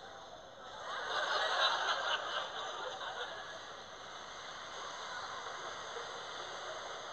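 Studio audience laughing, swelling about a second in and then dying away to a steady low background.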